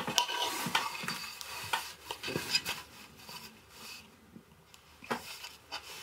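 A hand tool scraping and cutting at a woodblock during woodcut engraving, with scratchy strokes and a few sharp clicks. The strokes are busiest in the first half, die down about three seconds in, and end with one more click near the end.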